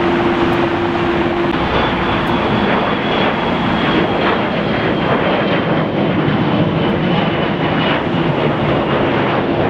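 Steady jet-engine roar of a twin-engine Embraer regional jet climbing out after takeoff, with a high turbine whine that comes in about two seconds in and slowly sinks in pitch.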